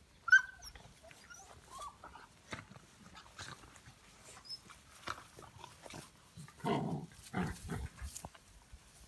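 Labrador puppies play-fighting: a sharp yelp a fraction of a second in, then small yips and scuffling through pine needles and leaves, with louder, low growls about seven seconds in.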